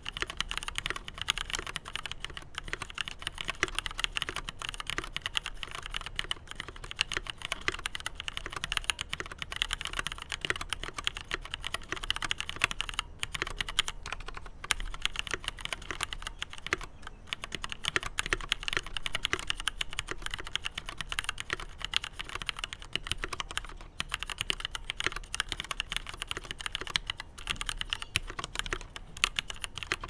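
Steady typing on a Leopold FC750R PD mechanical keyboard with Cherry MX Black linear switches and thick double-shot PBT keycaps. A continuous stream of key strikes, with a few short pauses.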